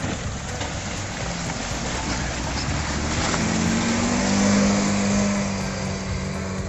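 Suzuki Vitara 4x4's engine working hard as it pushes through thick pond ice, with water and broken ice splashing around it. The engine note rises to its loudest about four and a half seconds in.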